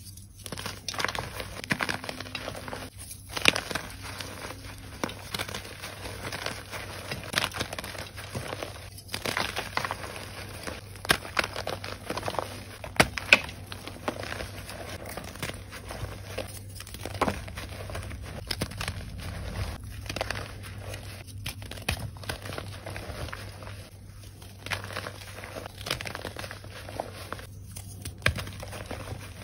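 Reformed gym chalk blocks crunched and crumbled between the fingers: dense, irregular crackling and crunching of breaking chalk and powder, with a few brief pauses.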